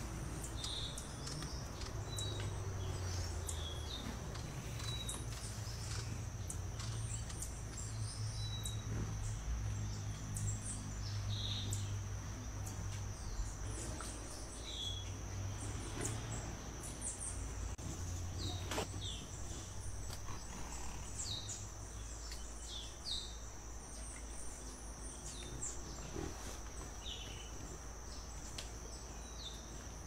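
Forest ambience: scattered short, high bird chirps, many falling in pitch, over a steady high-pitched tone and a low rumble.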